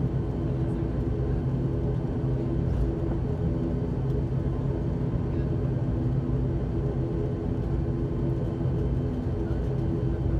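An ATR 72-600's Pratt & Whitney PW127M turboprop and propeller running at taxi power, heard from inside the cabin. It makes a steady drone with a low rumble and several held humming tones.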